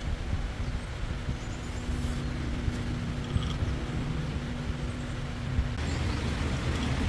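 Engine running steadily with a low rumble, and a steady hum on top that stops about six seconds in.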